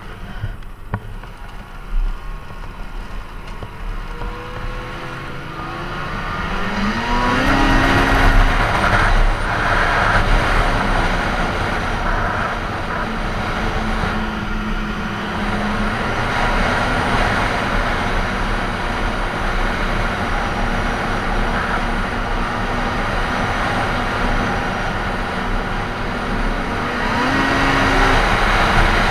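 Snowmobile engine speeding up from a slow pace, its pitch climbing over a few seconds and the sound getting louder, then running steadily at trail speed. The pitch climbs again briefly near the end.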